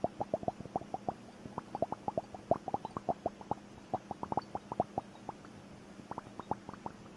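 Liquid bubble timer: small drops and bubbles plopping and gurgling through the liquid in quick, irregular succession, several short pitched plops a second.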